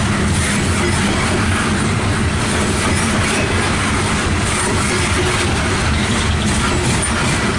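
Loaded CSX coal hopper cars rolling past at close range: steady, loud noise of steel wheels running on the rails.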